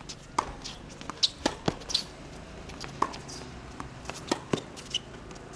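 Tennis rally on a hard court: sharp pops of rackets striking the ball and the ball bouncing on the court, a dozen or so at uneven intervals.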